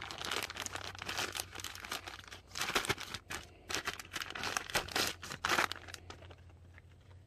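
Clear plastic parts bag crinkling and rustling in irregular handfuls as a bent-wire air filter retainer clip is pulled out of it, dying away about six seconds in.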